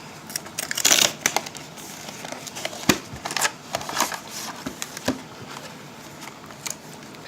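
Packaging crinkling and crackling as a sealed Pokémon trading card deck box is opened, with a dense burst of crackles about a second in and scattered clicks after.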